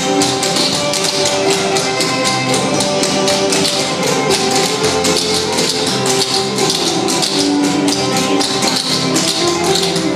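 Clogging: the metal taps on cloggers' shoes striking the floor in quick, rhythmic footwork, over music with a steady melody.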